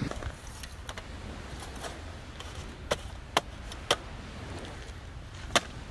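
Four light, sharp clicks of a small folding aluminium camp table being handled and set up, over a low steady rumble.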